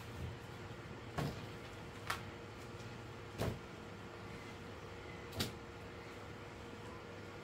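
About five sharp knocks and clacks, irregular and a second or two apart, as produce is handled in and against a plastic basin. A faint steady hum runs underneath.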